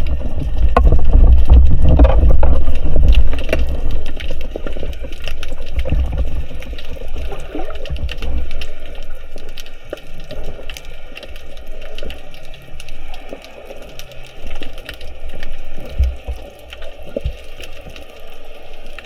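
Water rushing over the microphone of a spearfisher's camera, heaviest in the first few seconds and easing after, with many sharp clicks scattered throughout.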